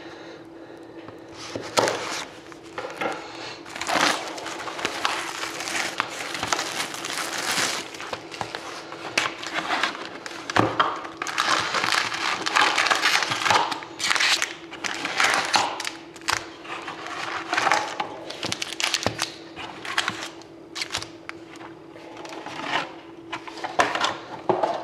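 Cellophane shrink-wrap being slit with a knife and stripped off a cardboard hockey card box, crinkling, then foil card packs rustling and clicking as they are pulled out and stacked. A faint steady hum runs underneath.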